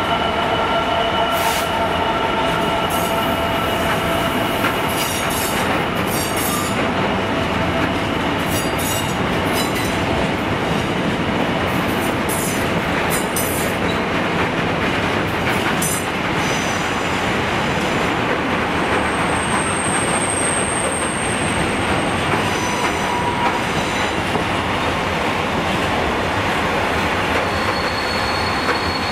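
Long freight train of container flats and sliding-wall box wagons running past behind an EWS Class 66 diesel locomotive: a steady loud rumble and rattle of wagon wheels on the rails, with scattered clicks over the rail joints. A few steady tones from the departing locomotive fade out in the first several seconds.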